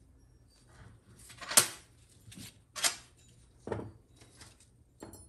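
Steel valves, springs and the aluminium valve body being set down and handled on a steel workbench: a few separate metallic knocks and clacks, the loudest about a second and a half in.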